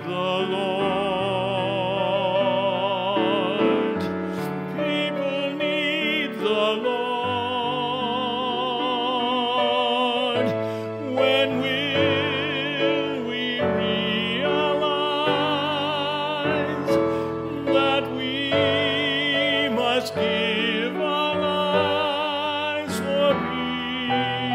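A man singing a slow solo song with a wide vibrato on long held notes, accompanied by piano.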